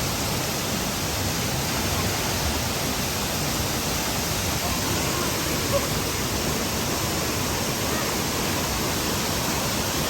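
Steady rushing roar of a waterfall.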